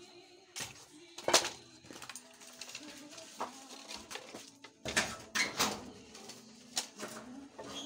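Dry bamboo slats knocking and clattering against each other and the wooden floor as they are handled, in a string of separate sharp clacks, the loudest about a second and a half in and a cluster near the end.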